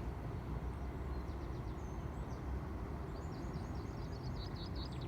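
A small songbird singing: scattered high chirps about a second in, then a longer twittering phrase past the middle, over a steady low rumble.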